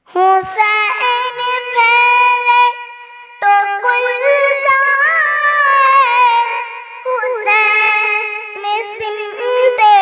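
A five-year-old girl singing an Urdu devotional kalam in a high voice, drawing out long held notes that bend and slide in pitch. The singing starts suddenly after a moment of silence.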